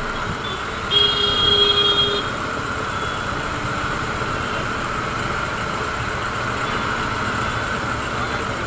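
Steady traffic noise of idling motorcycles and vehicles at a junction, with a vehicle horn sounding once for about a second, about a second in.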